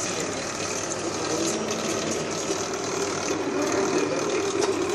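Cutaway car engine teaching model turning over, its pistons, timing belt and pulleys running with a steady mechanical whir and light ticking.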